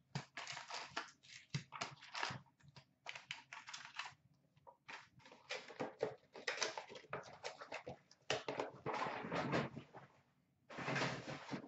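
Upper Deck hockey card packs being torn open and their wrappers crinkled, with the cards shuffled and flicked through, in a string of short crinkles and clicks. Longer crinkling stretches come near the end.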